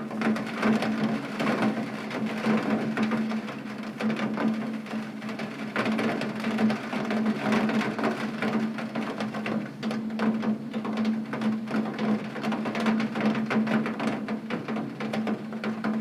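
Heavy rain striking a window pane, a dense steady patter of many drops, with a steady low hum underneath.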